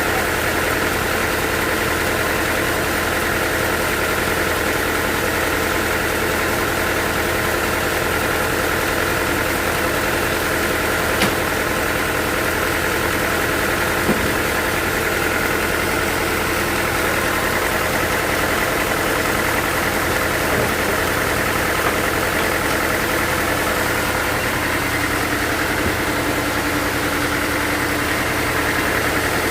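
Sawmill machinery running steadily, an even engine-like hum that does not change, with two faint clicks about 11 and 14 seconds in.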